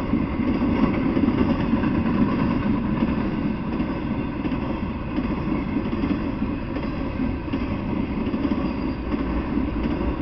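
Intermodal freight train of flatcars carrying highway trailers rolling past, a steady rumble of its wheels on the rails.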